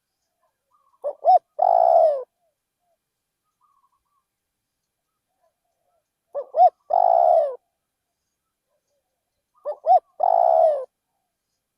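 Spotted dove cooing: three calls a few seconds apart, each made of two short notes followed by a longer coo that falls in pitch.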